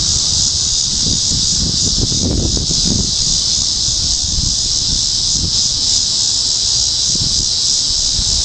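1975 Lakewood P-223 box fan with a Westinghouse motor running steadily under a constant high hiss, which the owner thinks probably needs oil. Gusts of breeze rumble on the microphone, strongest about two to three seconds in.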